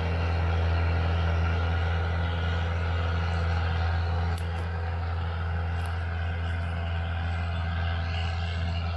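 Heavy diesel engine running at a steady speed, a constant low drone.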